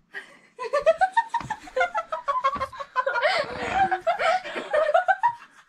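Several girls laughing and giggling together in bursts, starting about half a second in.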